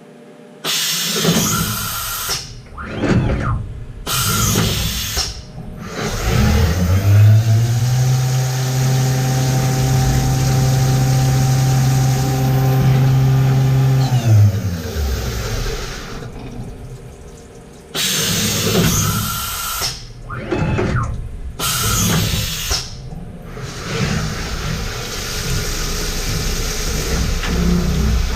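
Retrofitted Haas VF-3 CNC vertical mill running a drilling program. Its motion swells and falls away again and again, and a steady low hum holds for about seven seconds in the middle.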